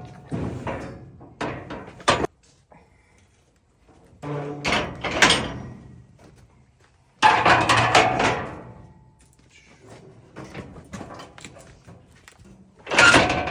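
Loud bangs and thuds, in several separate bursts with short quiet gaps between them.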